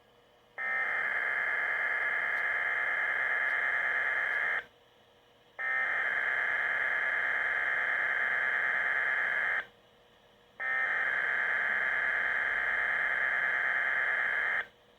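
Three SAME (Specific Area Message Encoding) digital header bursts on a Weatheradio Canada broadcast, each a harsh buzzing warble about four seconds long with a second's gap between them. They are the coded header that opens an emergency weather alert.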